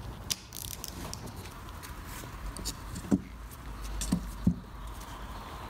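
Hand tools and metal A/C compressor clutch parts being handled on a bench: scattered light clicks and four short knocks, the loudest about three seconds in, over a steady low hum.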